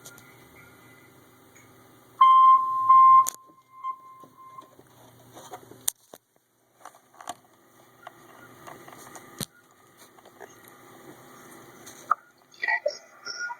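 NOAA Weather Radio warning alarm tone: one loud steady beep about two seconds in, lasting about a second with two brief dropouts, followed by faint radio static and a few clicks.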